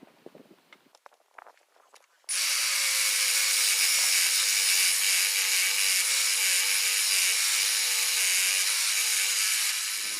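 Electric angle grinder with a cutoff wheel cutting into metal: a few light handling clicks, then the grinder starts suddenly a couple of seconds in and runs steadily with a wavering whine under a loud hiss, easing off near the end.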